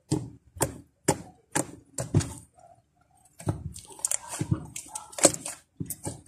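Homemade slime being pressed and stretched by hand, giving a run of sharp clicks and pops: about two a second at first, then a short pause, then faster and denser.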